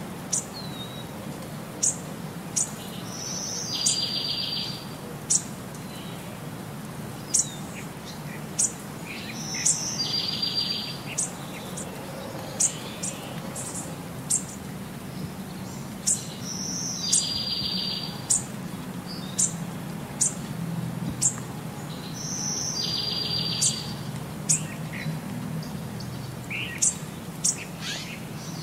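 Birds chirping: short high chirps every second or so and a buzzy trill that comes back about every six seconds, over a steady low hum.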